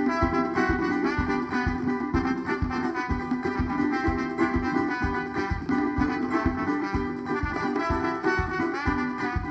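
A band plays an instrumental passage of a Maranhão tambor song, without singing: steady drum strokes, about three a second, under a sustained melodic lead.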